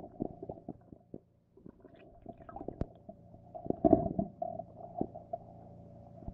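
Muffled underwater knocks and rumbles over a steady hum, picked up by a camera hanging beneath the ice; the loudest rumble comes about four seconds in.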